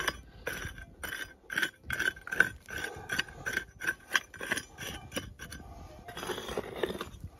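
Prospecting pick hitting stony ground in quick blows, about three a second, each with a short metallic clink, for about five seconds. Then a scraping rustle of loose dirt near the end.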